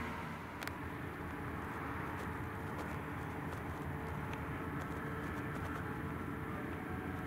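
Farm tractor engines running steadily: a continuous drone with a held hum, and a few light clicks.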